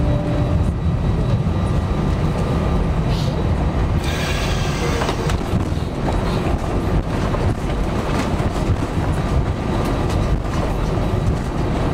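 Airbus A320 cabin noise while taxiing on one engine: a steady, loud rumble of the running engine and the landing gear rolling along the taxiway. A brief hiss comes about four seconds in.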